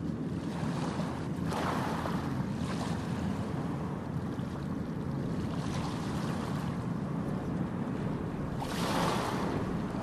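Ocean waves washing onto a beach: a steady low rush of surf, with a wave surging up and hissing out about a second and a half in and again near the end.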